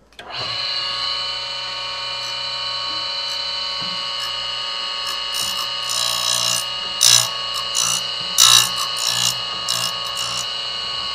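Tool and cutter grinder switched on, its motor spinning up to a steady hum and whine. In the second half a steel slotter tool is touched lightly against the wheel several times, giving short grinding bursts as its cutting face is freshened.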